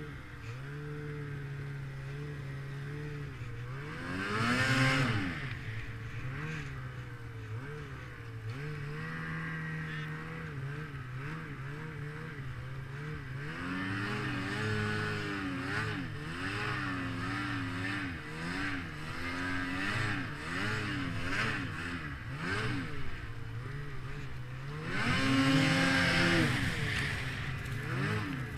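Snowmobile engine running with its pitch rising and falling as the throttle changes. It revs up loudly twice, about four seconds in and again near the end.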